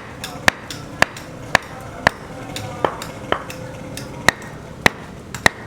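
Hammer blows on a building site, about two a second with a few short pauses, each strike giving a short metallic ring.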